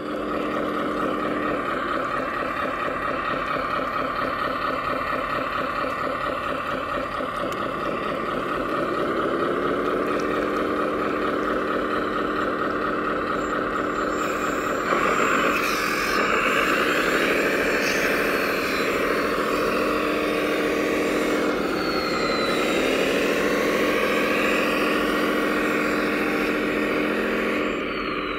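Simulated diesel engine sound from a 1/14 scale RC wheel loader's sound unit: steady idling at first, then revving up and down again and again from about a third of the way in.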